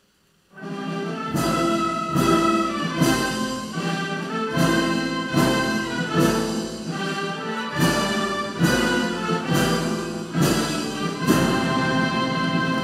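Brass-led orchestral music in a slow march rhythm, with a low beat about every 0.85 s under sustained chords. It comes in about half a second in, after near silence.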